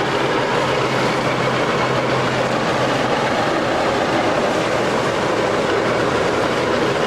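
Tandem road roller running, a loud, steady mechanical noise with a faint low hum that fades about three seconds in.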